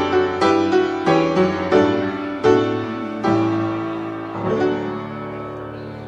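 Piano playing a slow series of chords, each struck and left to ring. The last chord, about four and a half seconds in, fades away.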